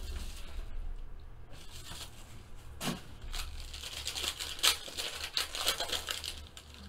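Foil trading-card pack wrapper crinkling as it is handled and torn open, with a sharp click about three seconds in and denser crinkling in the second half.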